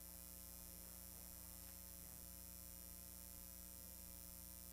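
Near silence, with only a steady low electrical mains hum.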